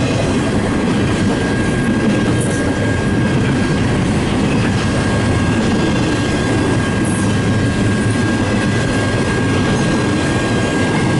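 Double-stack intermodal freight cars rolling past: a loud, steady rumble of steel wheels on rail, with a thin, steady high-pitched wheel squeal over it.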